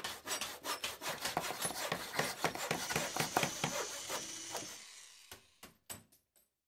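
Logo sound effect of quick, scratchy strokes, like a pencil sketching on paper, fading out after about five seconds and ending in a few separate clicks.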